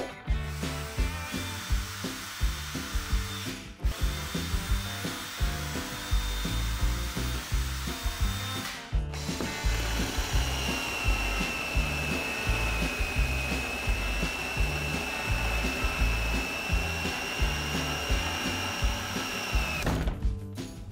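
Makita 18V cordless hammer drill running under load, boring holes in a wooden board. A steady high whine sets in about halfway through, and the sound breaks off briefly twice. Background music with a steady beat plays underneath.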